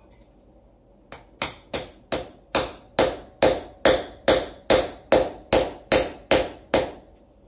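Short-handled sledge hammer striking a steel anchor bolt in a concrete floor: about fifteen quick, even blows, roughly two and a half a second, each ringing briefly, starting about a second in.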